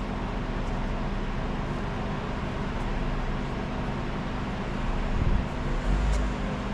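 Steady low hum of a car engine running nearby, with two louder low rumbles about five and six seconds in.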